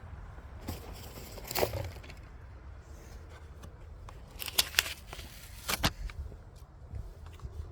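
Packaging of a diecast model car being handled and opened: a few sharp plastic clicks and crinkles, one about a second and a half in, a quick cluster past the middle and one more soon after, over a steady low background noise.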